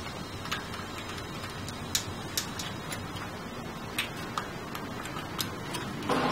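Metal roller drive chain of a motorized bicycle clicking and clinking irregularly as its links are handled and fitted onto the engine sprocket.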